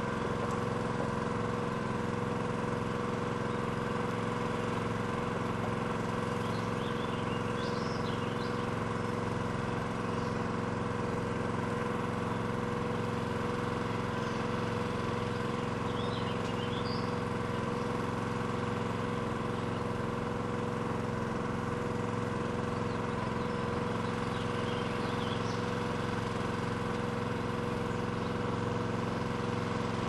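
Pile driver's engine running steadily at a constant speed, with no hammer blows. Birds chirp briefly a few times.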